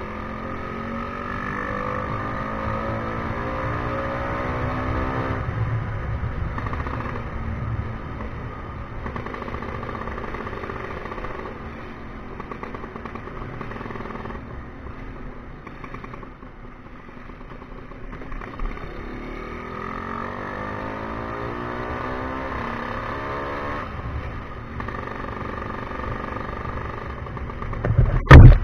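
Tuned-up Vespa scooter engine under way, its pitch rising as the throttle opens in the first few seconds, easing back to a steady run, then rising again about two-thirds through. A loud thump comes near the end.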